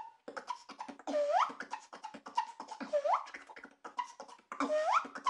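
Beatboxing with an inward tooth whistle: quick, sharp hi-hat-like clicks mixed with short whistled notes. Three times, about every two seconds, the whistle sweeps sharply upward in pitch.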